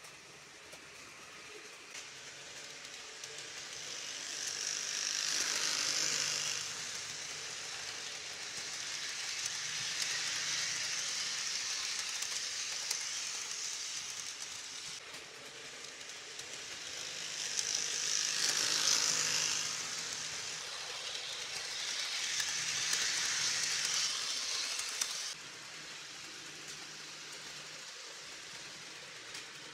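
HO scale model train running on its track: a rolling rattle with a faint motor hum that swells and fades several times as the train comes near and moves away, then drops suddenly near the end.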